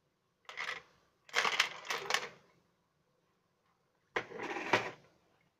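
Plastic case of a Jackly 45-in-1 precision screwdriver set clattering as it is handled, with its metal bits and drivers rattling in their slots, in three short bursts.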